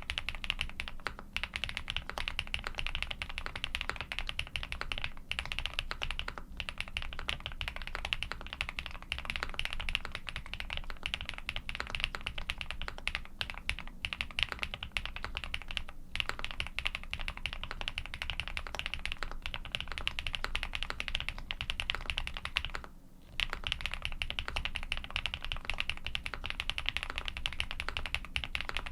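Continuous fast typing on a Mr. Suit custom mechanical keyboard with lubed Durock Cobalt POM switches, a polycarbonate plate and GMK keycaps: a dense stream of keystroke clacks. There is a brief pause about three-quarters of the way through.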